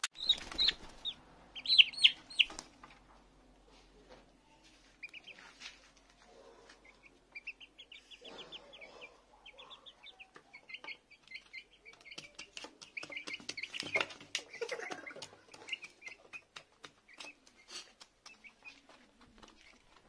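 Young chickens peeping and chirping in quick high runs, loudest about two seconds in, while their beaks tap again and again against the plastic feeder dish as they peck grain.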